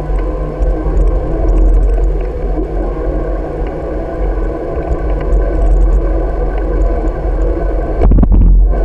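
Wind rushing over the microphone of a bicycle-mounted camera while riding, a steady low rumble mixed with road noise from the tyres. Near the end, a heavier buffet of wind is briefly the loudest sound and muffles everything else.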